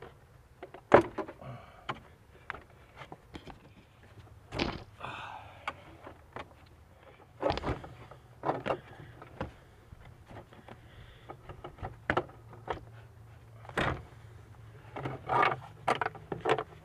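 Scattered knocks, clicks and rattles of a hard plastic engine air box being pulled loose from its mounts and lifted out, the sharpest knock about a second in and a quick run of them near the end. A low steady hum sits underneath.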